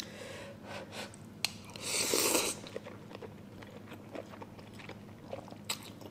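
A person slurping and chewing instant ramen noodles, with one long, loud slurp about two seconds in and small wet mouth sounds around it.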